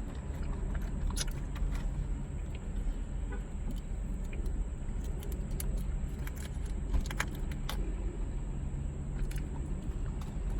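Chewing of sticky Hi-Chew candy, with short crinkles and clicks of a candy wrapper, over a steady low hum.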